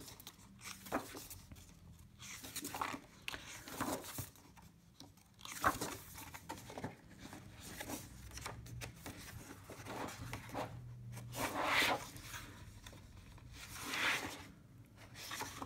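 Pages of a paint-with-water colouring book being leafed through quickly: soft paper rustles and swishes with small taps, the louder page turns about six, twelve and fourteen seconds in.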